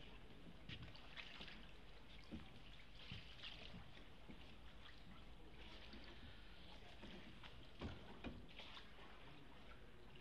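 Faint water sounds of a single oar rowing Venetian-style through a narrow canal: soft swishes and trickles every couple of seconds as the blade moves through the water. Two short, soft knocks come close together about eight seconds in.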